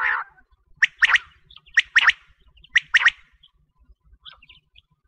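Quail calling: three sharp, high calls about a second apart, each a quick double note, after a short rougher burst at the start.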